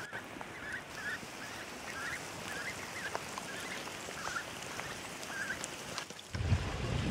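Mallard hens giving a run of short, soft calls, about two a second, over a steady hiss of rain. Near the end the calls stop and a louder low rumbling noise of wind or water takes over.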